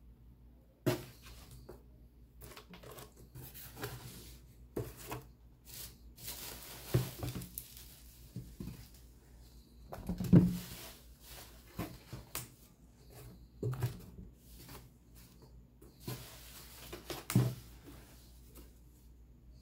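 Bubble wrap and a cardboard box rustling and crinkling as sneakers are handled, with scattered knocks of shoes being set down. The loudest thump comes about halfway through, as a shoe lands on the pile.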